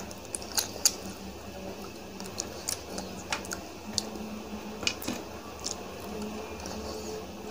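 Mouth and eating noises: scattered short wet clicks and smacks of chewing food, about a dozen over several seconds.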